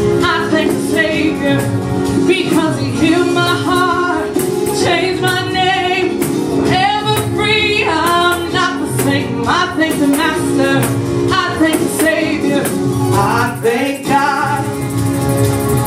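A woman singing a gospel worship song into a handheld microphone over instrumental backing music.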